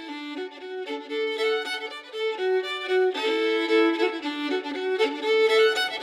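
Intro music: a violin playing a lively melody of quick, changing notes.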